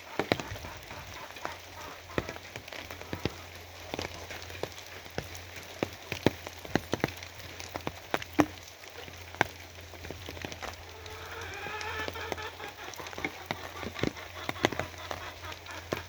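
Rain falling, with a steady hiss and heavy drops striking a hard surface as irregular sharp taps. About eleven seconds in, a pitched call with a wavering pitch sounds for about two seconds under the rain.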